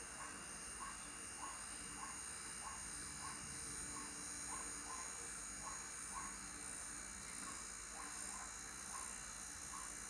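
A faint low hum from an old hermetic fridge compressor running as a makeshift vacuum pump, pulling down an air-conditioning system, under a steady high whine and a short chirp that repeats about twice a second.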